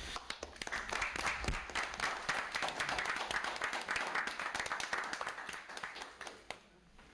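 A small group of people applauding: dense hand clapping that builds up in the first second and dies away near the end.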